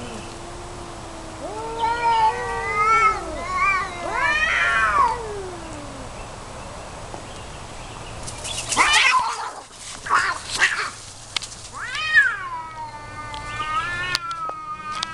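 Tomcats caterwauling in a fight standoff: long wavering yowls that rise and fall, then a few harsh, rasping bursts about nine seconds in, then another long drawn-out yowl.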